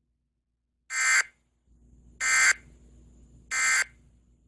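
Emergency Alert System end-of-message signal: three short digital data bursts, each about a third of a second, a little over a second apart, marking the end of the alert.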